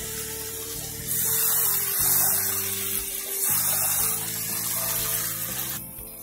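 Background music over three bursts of hissing sizzle from mashed carrots, milk and sugar cooking in a non-stick kadhai as a wooden spatula stirs them. The hiss is the milk and water being cooked off the carrot halwa.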